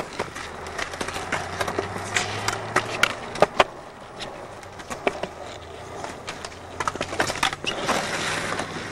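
Skateboard rolling on pavement, its wheels making a steady rolling noise broken by many sharp, irregular clicks and knocks.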